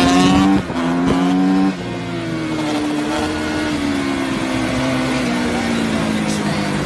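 Dirt bike engine running at high revs. It dips twice in the first two seconds, then holds a steady note that slowly sinks in pitch.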